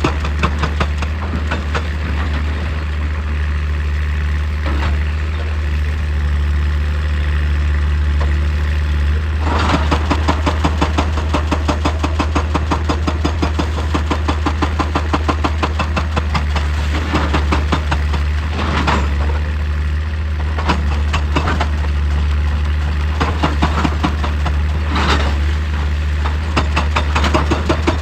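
Excavator's diesel engine running steadily with a rapid, even knocking pulse, which swells louder for a second or two a few times.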